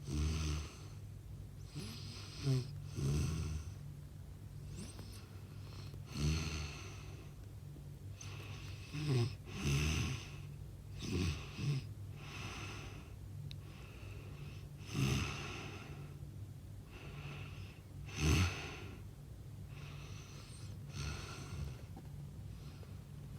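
Loud snoring: rough breaths every two to four seconds, irregular in spacing, some coming in quick pairs.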